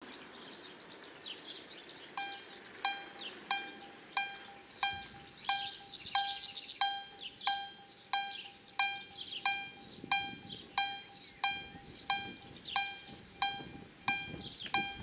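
DEPK-08 electric level-crossing bell of a COB-63A ZWUS crossing system starting to ring about two seconds in, one clear metallic strike about every two-thirds of a second. It is the crossing's warning that a train is approaching.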